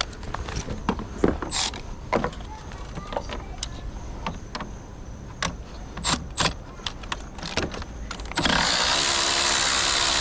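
Scattered clicks and clanks of tools and metal parts being handled. About eight seconds in, a handheld power tool starts up and runs steadily at an even pitch.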